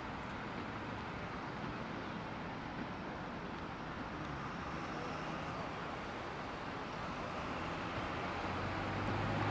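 Steady city road traffic noise from cars passing on a wide multi-lane road, growing a little louder near the end as a vehicle draws closer.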